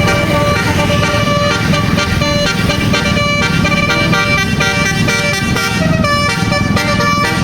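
Bus basuri telolet horn playing a melody: a quick run of pitched notes stepping up and down, over a steady low rumble.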